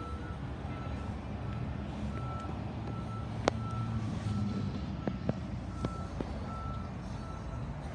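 A vehicle's reversing alarm beeping repeatedly at one high pitch, a little under two beeps a second, over a low engine rumble that swells in the middle. A sharp click about three and a half seconds in.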